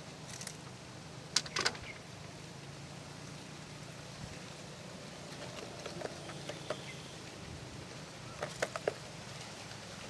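Steady outdoor background noise with a few short, sharp clicks and taps, a pair about a second and a half in and a quick cluster near the end.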